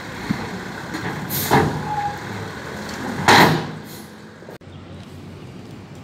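Heavy dump truck nearby: its engine running low, with two short, loud hisses of its air brakes about two seconds apart, the second the louder.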